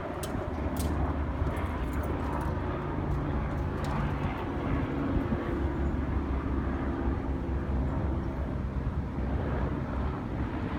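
Engine of heavy lifting equipment running steadily at a constant speed, a low even drone.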